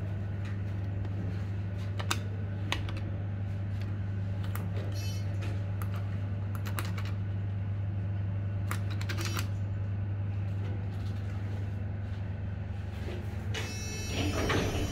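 KONE cargo elevator car: a steady low hum with scattered sharp clicks as the car-panel buttons are pressed. Near the end the heavy car doors start opening with a rising rattling rush.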